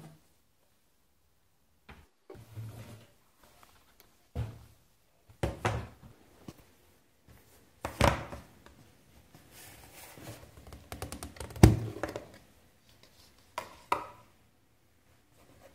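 A cocoa tin and a small glass jar being handled on a wooden countertop: a string of separate thunks and knocks as they are picked up, set down and moved, with some scraping and clicking between. The loudest knock comes about two-thirds of the way in, and the tin's lid ends up off.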